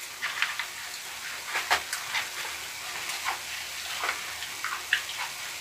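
Close-miked chewing of a mouthful of kimchi fried rice: soft, wet mouth clicks and smacks at an irregular pace.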